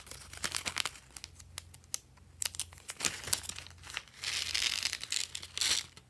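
Small plastic zip-lock bag crinkling and crackling as it is opened and handled. About four seconds in comes a louder, steady rustle lasting over a second as the bag is tipped and shaken to pour confetti sprinkles out.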